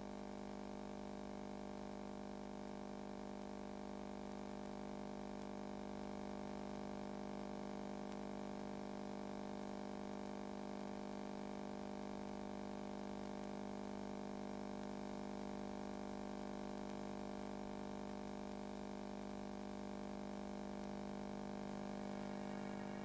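A steady electronic drone of several held low tones, unchanging throughout, with a faint tape-like hiss above it.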